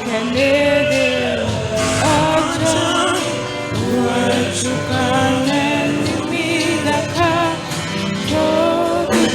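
Gospel worship music with singing, the voices holding long, sliding notes.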